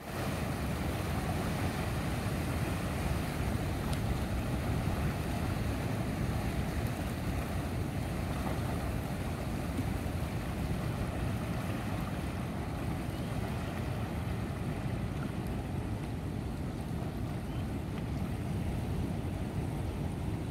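Steady rushing noise of wind and sea waves washing against rocks, heaviest in the low rumble and unbroken throughout.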